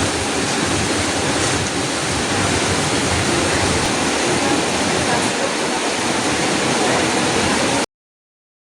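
Heavy rain falling, a steady loud hiss that cuts off abruptly near the end into silence.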